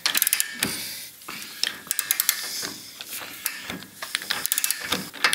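Socket ratchet wrench clicking in quick runs as the crankshaft pulley bolt of a VW Beetle engine is run down and tightened toward 40 Nm, with scattered knocks of tool on metal between.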